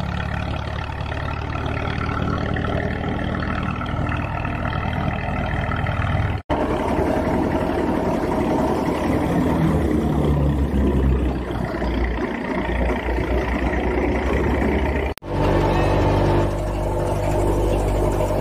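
Tractor engine driving a belt-powered wheat thresher, running steadily while straw is fed through and threshed. The sound drops out briefly twice.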